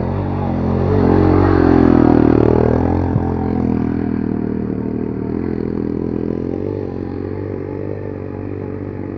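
Dirt bike engine revving hard in first gear. It swells and rises in pitch over the first few seconds, then runs on steadily and slowly fades.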